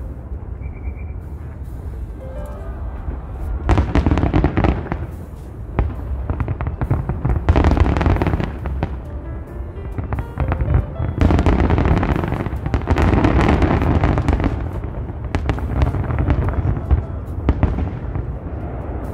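Aerial fireworks shells bursting in rapid volleys: a dense run of bangs and crackling that comes in waves, with three heavier barrages, the longest in the second half.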